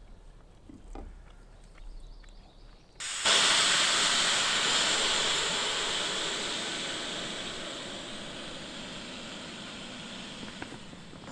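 A loud hiss starts suddenly about three seconds in and fades slowly over the next several seconds.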